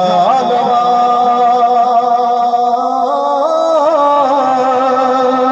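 A man singing a naat into a microphone, amplified through a PA. He holds long drawn-out notes with small ornamented turns in pitch.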